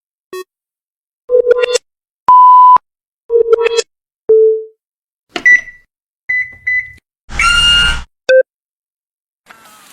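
A string of short electronic button sound effects with gaps between them: blips and beeps of different pitches, some chirping in quick steps. The loudest is a steady beep of about half a second a little over two seconds in, and a harsher buzzy one sounds near the eight-second mark.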